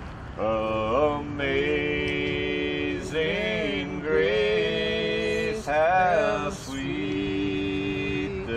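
A man singing a slow song, starting about half a second in, drawing out long held notes with short breaks for breath and a few wavering turns.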